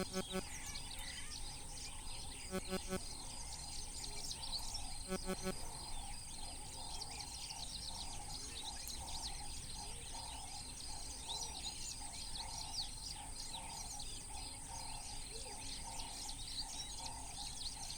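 Wild ambience: many small birds chirping over a steady high insect whine and a lower pulsing insect drone. A short, low double call sounds three times, about two and a half seconds apart, in the first six seconds.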